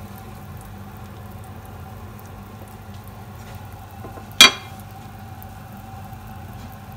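Pot of pork sinigang broth simmering on the stove, a steady bubbling over a faint even hum, with one sharp knock, the loudest sound, about four and a half seconds in.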